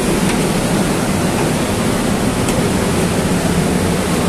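A steady, loud rushing hiss, even and unbroken, with no distinct knocks or events in it.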